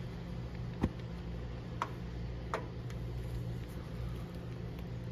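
A few sharp metal clicks and knocks as a lidded enamelware stockpot is gripped and handled on a propane grill's side burner, over a steady low rumble. The loudest click comes about a second in.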